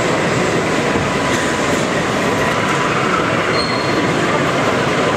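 A model railway goods train running along the track, making a steady rolling noise of wheels on rail.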